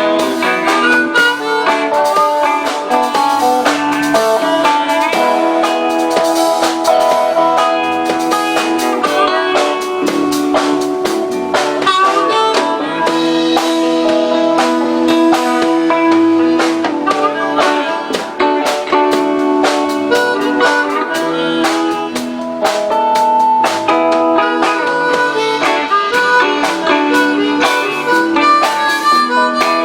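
A live band playing an instrumental break in the song: a lead line of long held notes over guitar and drums.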